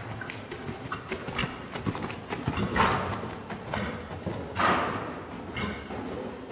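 A ridden horse's hoofbeats on the sand footing of an indoor riding arena, a run of short strokes, with two louder rushing bursts about three and four-and-a-half seconds in.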